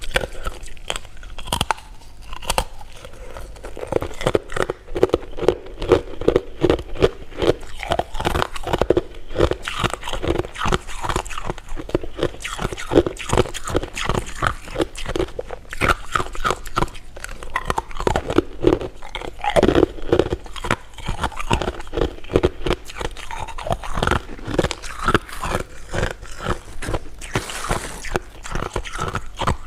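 Close-miked chewing and biting of jelly and hard candy: a continuous, dense run of wet mouth smacks and crunches.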